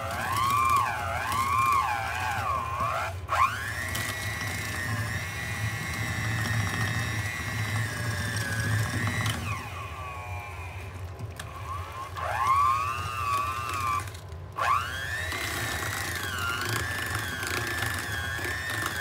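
Electric hand mixer running, beating butter, sugar and cream cheese into frosting. Its whine wavers up and down in pitch throughout and dips sharply twice, near the start and about three-quarters of the way in. About halfway it winds down and fades, then speeds back up a couple of seconds later.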